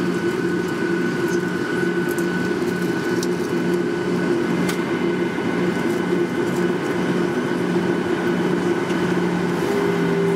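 Boeing 737-800's CFM56-7B jet engines running at low taxi power, heard inside the cabin as a steady hum with a few steady tones, while the airliner taxis. The pitch of the tones shifts slightly near the end.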